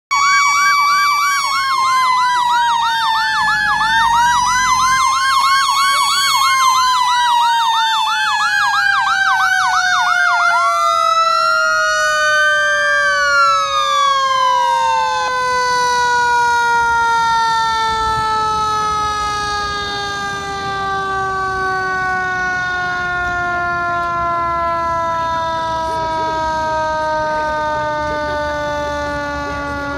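Fire engine sirens: a fast yelping siren over a steady wail for about the first ten seconds, a short rising and falling wail, then the remaining siren tone winding down, falling slowly in pitch for the rest.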